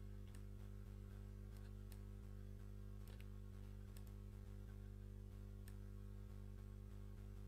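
Computer mouse clicking a handful of times at irregular intervals, over a steady low hum.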